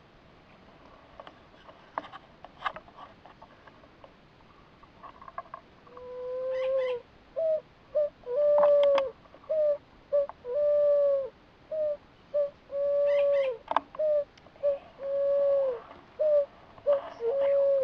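Light clicks and rustling of handling among dry stalks, then from about six seconds in a run of loud, hollow, dove-like cooing calls: long notes alternating with short ones, each long note dipping slightly at its end.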